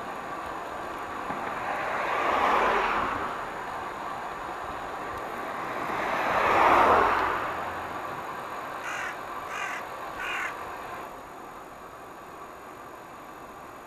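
Two cars pass one after the other, each a swell of tyre and engine noise that rises and fades, the second louder, over the steady rush of wind and road noise from the moving bicycle. A little after the middle a crow caws three times.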